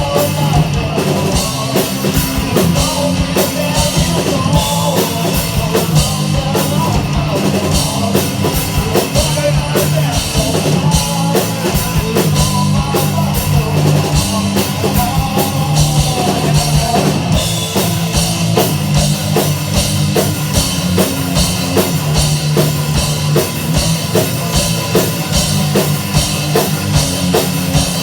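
Loud rock music with a pounding drum kit and distorted guitar.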